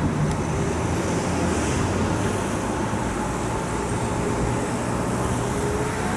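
Steady rumble of a Dutch NS electric passenger train running along the line, heading away, with a faint steady hum under it.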